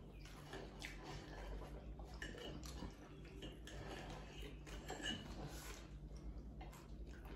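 Quiet mealtime sounds: knives and forks clicking and scraping on plates as pizza is cut, with chewing.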